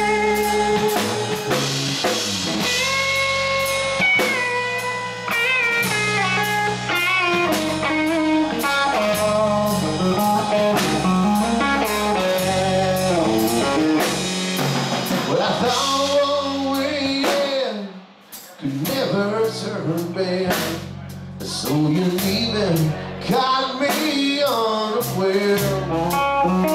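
Live blues-rock band in an instrumental break: electric guitar lead with bent notes over bass guitar and drum kit. The band drops out briefly about two-thirds of the way through, then comes back in.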